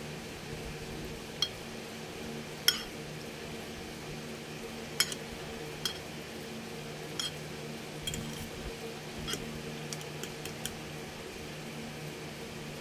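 Metal fork clinking and scraping against a ceramic bowl as it beats raw egg, canned tuna and moringa leaves together, in irregular clinks, over a steady low hum.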